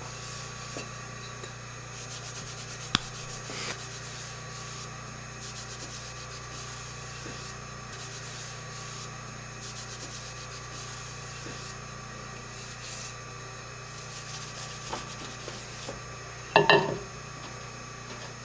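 Steady hum under light rubbing and wiping on a potter's wheel head, with a sharp tick about three seconds in. Near the end a plaster bat is set down on the metal wheel head with a short, loud clatter.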